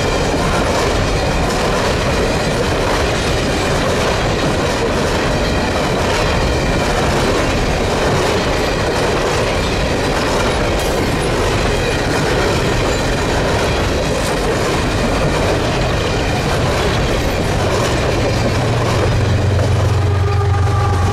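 A string of empty coal cars rolling past, their steel wheels clacking over the rail joints with a faint squeal. From about three seconds before the end, the low hum of an approaching GE diesel locomotive, a distributed-power unit in the train, rises under the noise of the cars.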